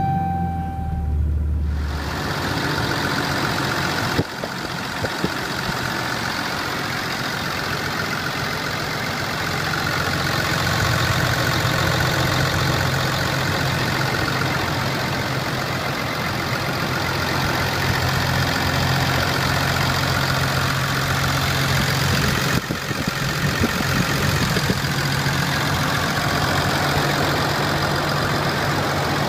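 A 6.7-litre Cummins turbo-diesel straight-six idling steadily. About two seconds in, a low rumble gives way to a fuller, brighter clatter and hiss as the engine is heard with the hood open.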